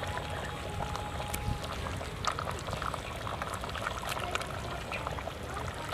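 Vegetable soup being ladled from an aluminium pot and poured into a bowl: liquid pouring and splashing, with light clinks of the metal ladle.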